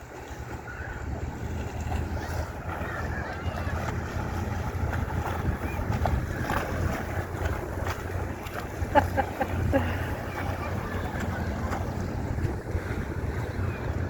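Motorboat engine rumbling steadily as the boat passes, over wind and water noise. A brief cluster of sharp clicks about nine seconds in.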